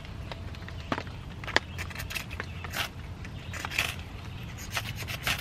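Ferrocerium rod scraped with a steel striker to throw sparks onto tinder: several short, sharp rasping strikes about a second apart.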